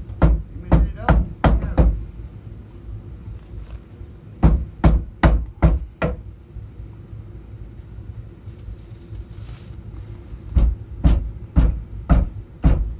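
Hammer blows on wood in three bursts of about five strikes each, a little over two a second, as an opening is knocked out between floor joists.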